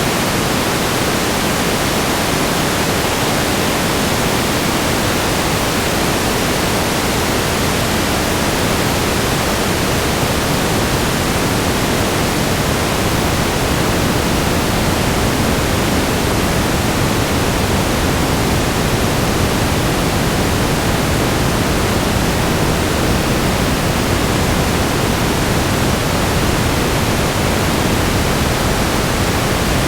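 Steady static noise: an even hiss spread across all pitches, loud and unchanging throughout.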